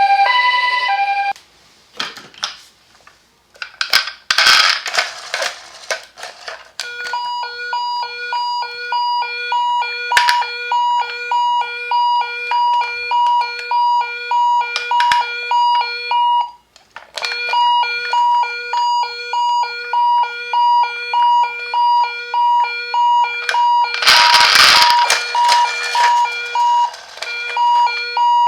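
A toy ambulance's electronic siren beeping in a fast, even, repeating pattern of about two to three beeps a second, with a short break partway through. The beeping comes in after a few seconds of clattering handling noise, and another burst of clatter falls near the end.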